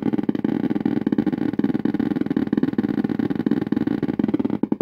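Simulated Geiger counter clicking from an Arduino-driven speaker inside a gutted 1960s CD V-720 survey meter: a fast, dense crackle of clicks, the prop's imitation of detecting strong radiation as it is tilted upright. The clicking cuts off near the end.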